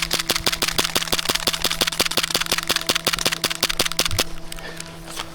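Airsoft gun firing a long full-auto burst: an even, rapid string of sharp shots, about eight a second, that stops about four seconds in, followed by a few scattered shots.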